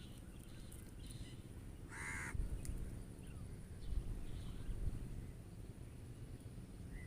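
A bird's single short call about two seconds in, over faint low background noise.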